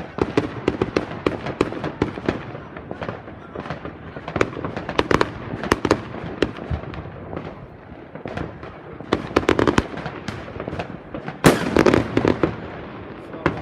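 New Year's fireworks and firecrackers going off: a dense, irregular crackle of many bangs and pops, with the loudest burst about eleven and a half seconds in.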